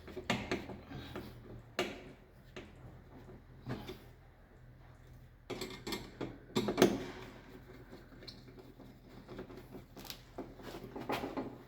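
Irregular clicks, knocks and rustling of hand tools and cable being worked into the neutral terminals of a distribution board, with the busiest handling about six to seven seconds in and again near the end.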